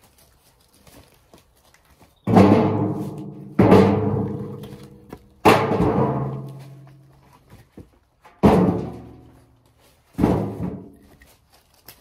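Pieces of firewood dropped one at a time into an empty wheelbarrow: five hollow thuds, the wheelbarrow tray ringing on for a second or two after each.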